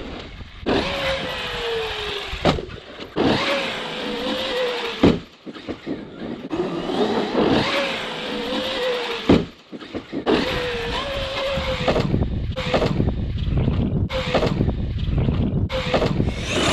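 Traxxas Wide X-Maxx RC monster truck's electric motor and drivetrain whining, rising and falling in pitch as the throttle is worked. Several sharp thumps of the truck landing off dirt jumps; the loudest come about five and nine seconds in.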